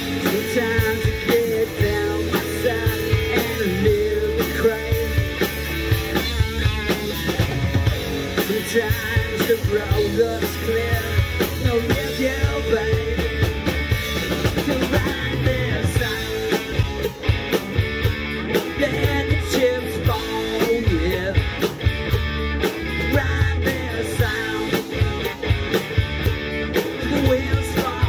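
Live rock band playing: electric guitar, bass guitar and drum kit, with steady drum beats.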